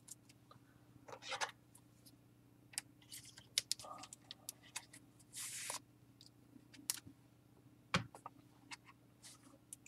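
Quiet, scattered rustles, scrapes and clicks of trading cards being handled, with a few brief louder swishes, over a faint steady hum.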